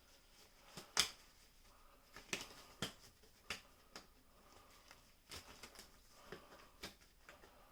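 Faint, scattered clicks and light taps, about a dozen at irregular intervals, the loudest about a second in: hands and tools working at a wall light switch and its wires as the wires are taken off.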